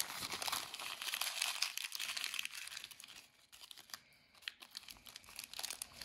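Small clear plastic bag of screws crinkling as fingers work it open, dense for the first three seconds, then sparser and quieter before picking up again near the end.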